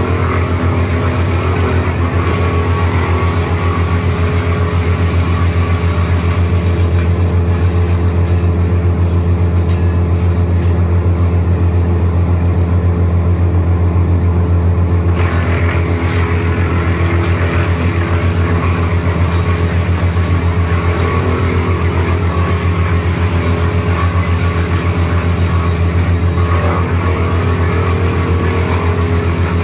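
Wood chipper running steadily at working speed: a loud, constant engine hum with a rougher, higher noise over it. The higher noise dies away for several seconds around the middle and comes back abruptly just after halfway.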